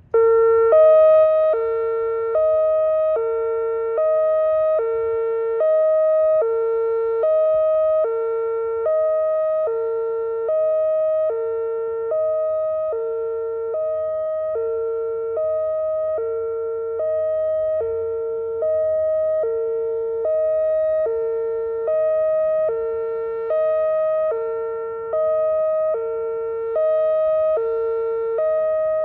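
Electronic door warning siren sounding a hi-lo alarm: two tones alternating steadily, about one full cycle every second and a half. It starts abruptly and is loud.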